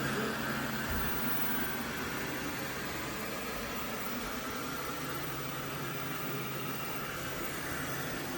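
FIXR T20 Plus robot vacuum running: a steady whirring hiss from its suction fan over a low hum.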